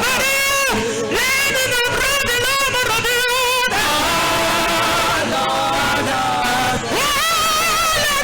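Worship singing with music: voices hold long notes with vibrato, several lines moving together.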